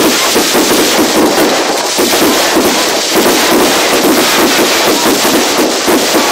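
Bonfire night fireworks going off: a dense, continuous run of crackling and popping bursts.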